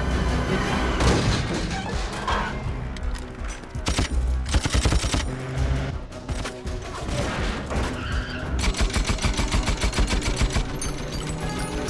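Bursts of rapid automatic rifle fire, the longest run near the end, over background music.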